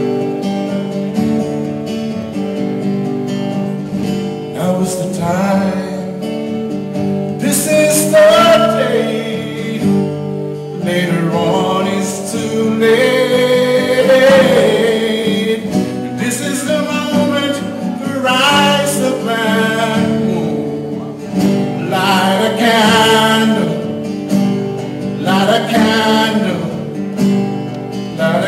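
A man singing a slow ballad live, accompanying himself on an acoustic guitar.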